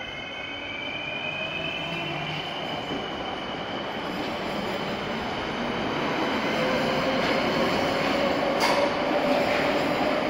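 ŁKA Stadler FLIRT electric multiple unit running along an underground platform and passing close by, growing steadily louder. A high electric whine glides upward in the first couple of seconds and a lower whine comes in from about the middle, over wheel and rail noise. There is a single sharp knock near the end.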